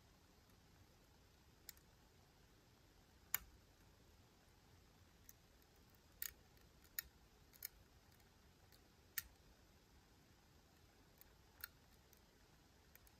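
Faint, small clicks of a lock pick working inside a Miwa U9 lock's keyway, about nine of them at uneven intervals.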